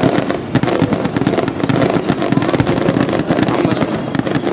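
Aerial fireworks going off in a dense, continuous crackle of many rapid small pops, with sharper bangs among them, as green and gold stars burst.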